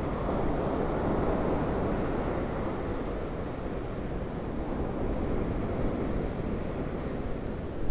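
Heavy storm surf from a hurricane surge breaking and washing ashore in strong wind, a steady rush of noise that swells about a second in.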